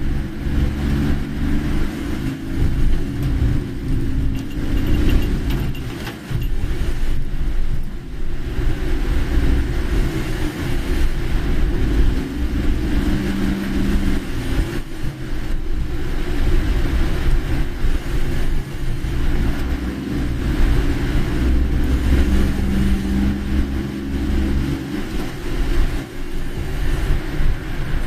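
A car driving along a road: steady engine and road rumble with a continuous hiss of tyre and rain noise.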